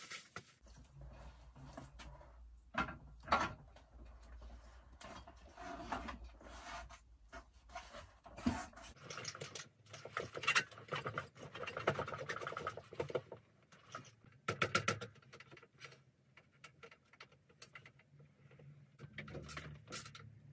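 Workshop handling noises: scattered clicks, knocks and scrapes of metal as Suzuki DR-Z400 front fork legs are slid up through the aluminium triple clamps and the clamp bolts are worked with a hand tool, with a quick run of clicks a little past the middle.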